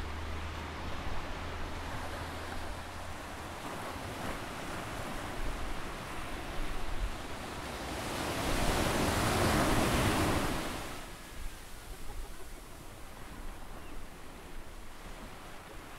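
Gentle surf on a sandy beach: a steady wash of small waves, which swells louder for about three seconds near the middle as a wave breaks and runs up the sand.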